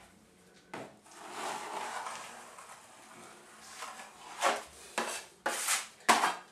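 A wide-bladed drywall caulker spreading joint compound over a ceiling crack: a long scraping rub, then a few short, sharp scrapes and knocks of the blade near the end.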